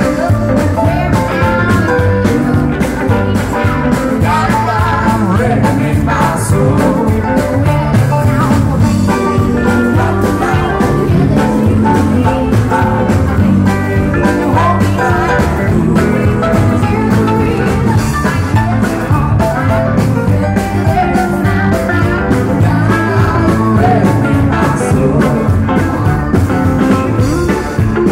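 Live band playing an upbeat rock-and-roll-style song with a steady drum beat, and a woman singing lead through the stage sound system.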